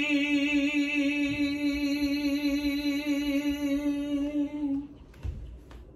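A man singing a Bengali folk song unaccompanied, holding one long steady note for nearly five seconds before it stops.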